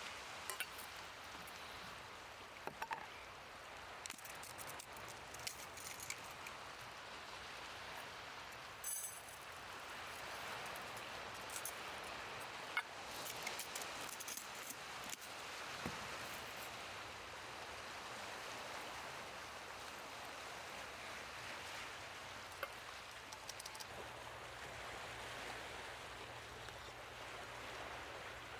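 Wood campfire crackling with scattered sharp pops, over a steady wash of sea surf that swells and eases slowly.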